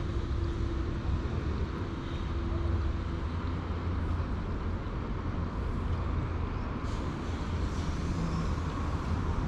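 Steady rush of a fast-flowing stream, with a deep rumble underneath.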